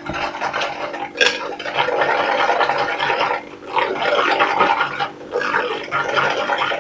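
Cake batter of eggs, sugar, oil and yogurt being stirred and beaten by hand in a bowl, a wet churning scrape in uneven stretches, with a utensil clinking on the bowl about a second in.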